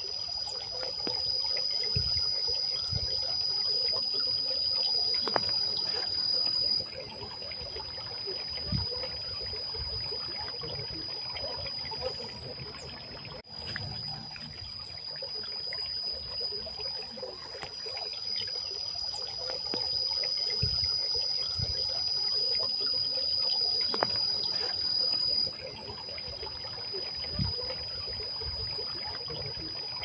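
Water trickling and splashing down the bowls of a tiered stone garden fountain, over a steady high-pitched drone.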